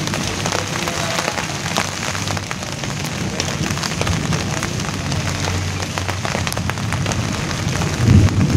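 Steady rain falling on a large banana leaf: a continuous hiss with many separate drops tapping close by. A louder low rumble rises near the end.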